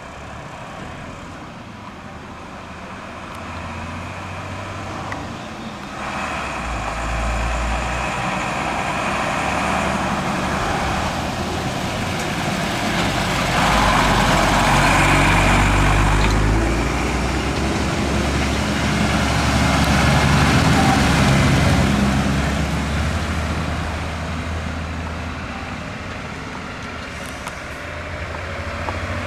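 Heavy road vehicles running and moving, a low engine rumble with road noise. It grows louder about halfway through, swells again a few seconds later, then fades.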